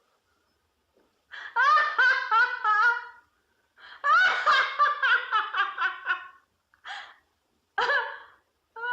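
A woman laughing: two long runs of quick, rhythmic, high-pitched laugh pulses, then three short bursts of laughter near the end.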